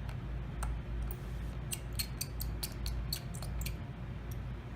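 Precision screwdriver working a tiny Phillips screw out of an iPhone 7: a quick run of small, light clicks over about two seconds, against a steady low hum.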